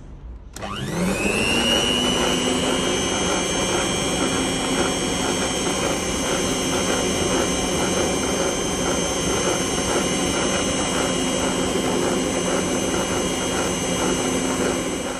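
Electric mixer with twin wire beaters starting up about half a second in, its whine quickly rising in pitch, then running at a steady speed while beating flour into sponge cake batter.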